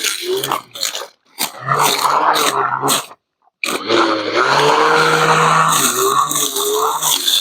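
Cordless 21-volt battery brush cutter with a metal blade running and cutting grass, its motor pitch sagging and recovering as the blade bites. It cuts out briefly about three seconds in, then starts again.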